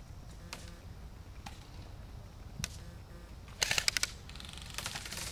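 Airsoft guns firing: a few single shots spread over the first few seconds, then a quick burst of several shots about three and a half seconds in, the loudest sound, and another burst near the end.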